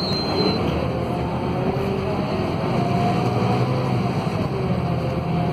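Scania DC09 five-cylinder diesel of a city bus, heard from inside the passenger cabin as the bus pulls away from a stop. The engine note rises about two seconds in as it accelerates.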